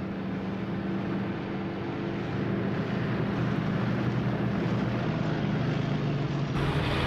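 Steady droning of military truck engines on the archive soundtrack, a low hum with a noisy rumble over it.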